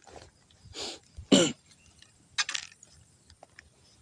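A man clears his throat in a few short bursts, the loudest and most voice-like about a second and a half in, with small handling clicks between.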